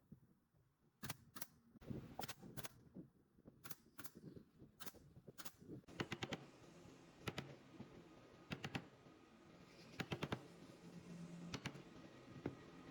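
A string of light, sharp taps and clicks at an uneven pace, often in quick pairs, over a quiet background.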